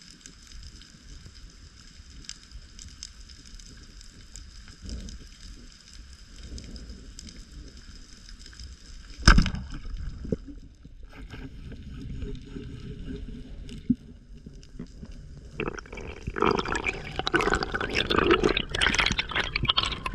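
Underwater sound through a diving camera: a low water rumble with a faint steady high hum, and a single sharp knock about nine seconds in. From about sixteen seconds on, loud bubbling and churning water.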